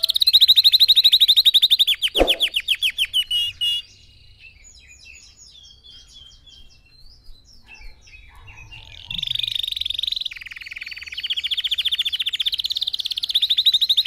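Red factor canary singing in fast, ringing trills. The song breaks off after about four seconds into soft scattered chirps, then resumes loudly about nine seconds in.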